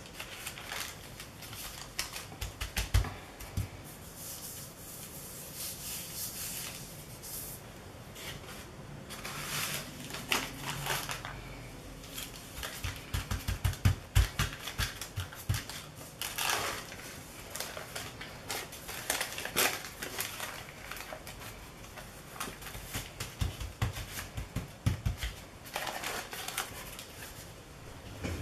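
Hands rubbing and patting paper coffee filters down onto a gel printing plate and peeling them off: paper rustling and crinkling with many irregular clicks and taps, and a few low knocks on the tabletop.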